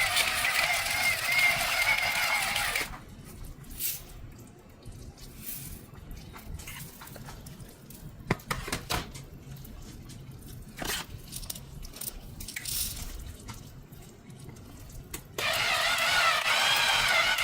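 Background music that breaks off about three seconds in, leaving a quiet stretch of scattered faint clicks and taps, then starts again near the end.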